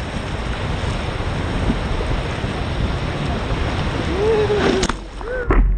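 Ocean surf and wind buffeting the microphone, a steady noise with a heavy low rumble. Near the end a short exclamation from a person cuts through, followed by a second brief one as the wind noise drops.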